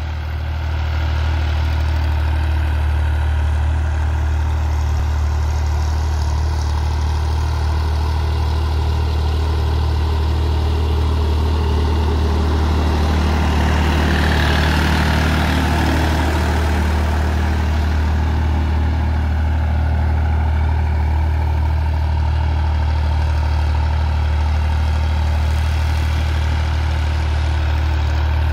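Massey Ferguson 9500 tractor's diesel engine running steadily under load, pulling a 13-tine tiller through dry soil. It gets louder and brighter about halfway through as the tractor passes close, then eases off as it moves away.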